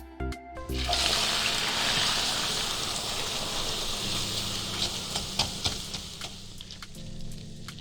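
Food sizzling in a hot pan, starting suddenly about a second in, loud at first and then slowly dying down, with a few light clicks later on. Music plays briefly at the start and comes back near the end.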